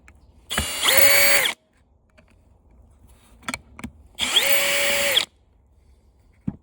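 Electric screw gun running in two short bursts of about a second each; the motor winds up, holds speed, then winds down each time. A few faint clicks between and after the bursts.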